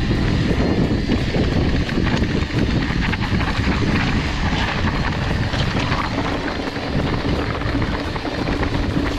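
A mountain bike ridden over a dirt trail: continuous wind rush on the microphone and a low rumble of tyres and bike over the ground.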